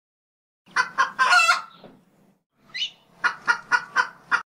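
A rooster crowing, a short crow of two quick notes and a longer one, then a chicken clucking about five times in quick succession.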